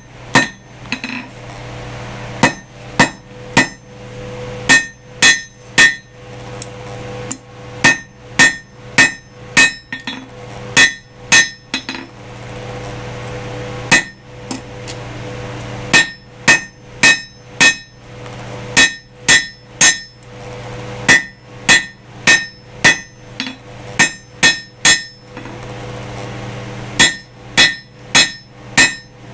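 Hand hammer striking hot half-inch rebar on an anvil, drawing out the handle of a forged pendant. Each blow rings, and the blows come in runs of several at about two to three a second with short pauses between. A steady low hum sits underneath.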